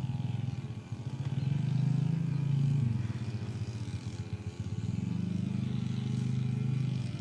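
Brush cutter engine running steadily, growing louder twice.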